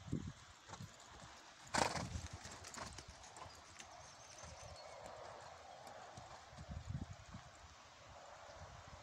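A ridden horse's hooves thudding softly and unevenly on a chip-covered arena surface. One short, loud burst of noise comes about two seconds in, the loudest sound here.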